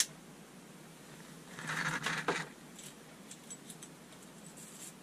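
Handling of a metal shower hose and its fittings: a click at the start, a short scraping rustle about two seconds in, then light scattered metallic ticks.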